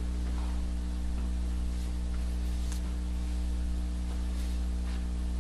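Steady low electrical hum with a layer of hiss, and a few faint clicks.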